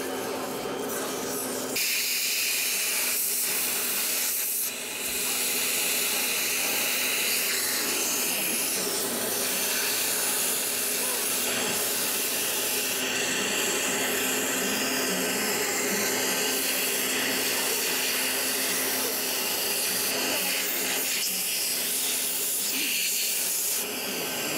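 Dental air-water syringe spraying with a steady hiss as it rinses a dog's teeth after polishing. The hiss starts about two seconds in, dips briefly once and eases near the end, over a steady low hum.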